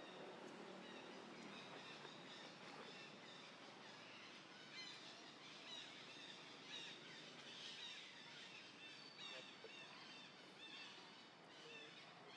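Faint outdoor ambience with many short, high chirps, most of them from about four seconds in: small birds calling.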